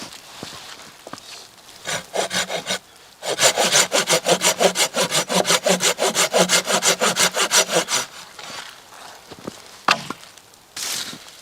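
Hand saw cutting through wood: a few short strokes, then a fast, steady run of sawing strokes lasting about five seconds that stops abruptly. A single knock follows near the end.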